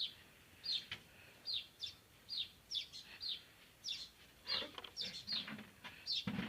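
Many short, high chirps, each dropping quickly in pitch and repeated about two to three times a second, from small animals calling in a tree. There is a low knock near the end.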